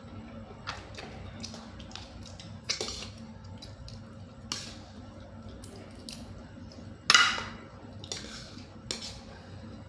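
Close-up eating sounds of someone eating giant cockles: scattered wet mouth smacks and clicks, with a louder wet burst about seven seconds in.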